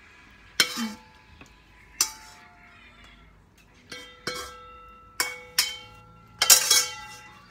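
A metal spoon scrapes and knocks against a metal wok as stir-fry is pushed out onto a plate. There are about seven sharp clanks, each leaving a brief metallic ring, with the loudest cluster near the end.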